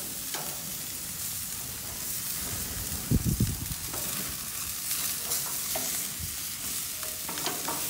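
Pork chops sizzling on a grill as dripping fat feeds a flare-up of flames, with a steady hiss and a few clicks of metal tongs against the grate. A brief low rumble comes about three seconds in.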